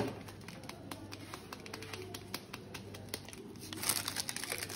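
A spoon clicking and scraping against a bowl as garam masala is added to a spice-and-oil mixture and stirred in: irregular light clicks, a knock at the start, and a louder stretch of scraping near the end.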